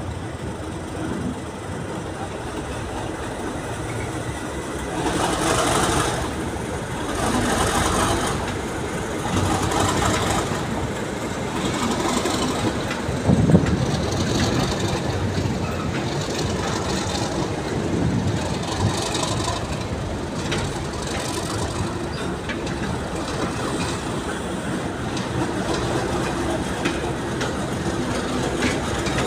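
A train of tank wagons hauled by Class 37 diesel locomotives pulling away past the listener, the locomotives' English Electric engines running under the steady noise of wagons rolling and wheels clacking over rail joints, with one sharp loud clank about 13 seconds in.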